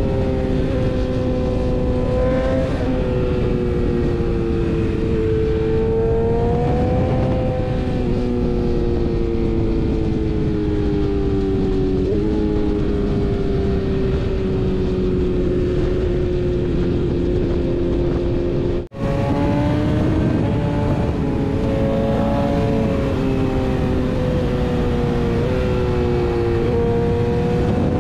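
BMW S1000RR's inline-four engine running at riding revs under a rush of wind, its pitch rising and falling gently with the throttle. The sound drops out for a split second about two-thirds of the way through.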